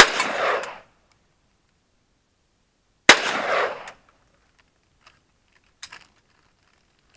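Two single shots from an AK-47 rifle about three seconds apart, each followed by a short echo that dies away in under a second.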